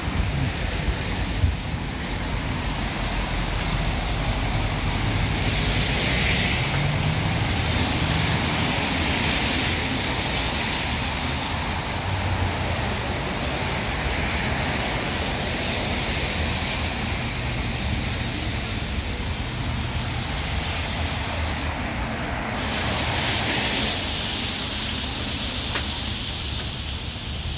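City street traffic on wet pavement: a steady rumble of vehicles with tyre hiss that swells as cars pass, about six seconds in and again near the end. A couple of short sharp knocks near the start.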